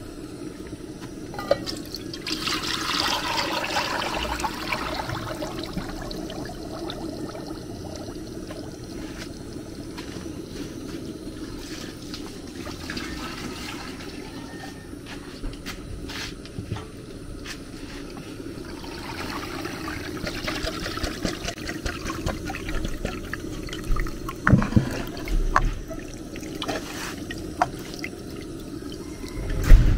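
Thick palm nut juice pouring and splashing through an aluminium colander into a plastic bowl as the pulp is strained, in two long pours. Several sharp knocks come near the end, the loudest right at the end.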